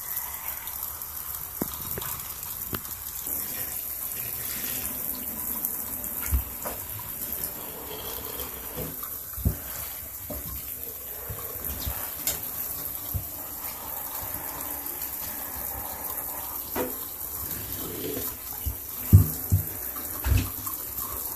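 Shower spray running onto wet leather boots in a bathtub, a steady hiss. A few dull thumps come through, the loudest near the end.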